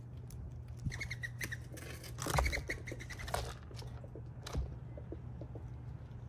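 A squirrel rummaging and scratching through peanuts and sunflower seeds on a feeder table, with a burst of rustling in the middle and a sharp click near the end. Short high bird chirps come in two quick runs, about a second in and again around the middle, over a steady low hum.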